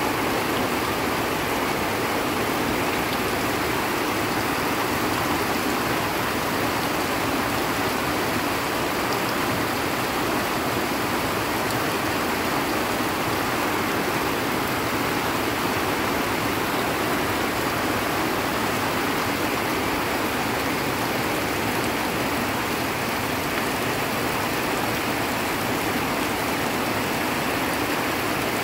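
Torrential rain pouring down steadily on trees and ground: an even, unbroken hiss.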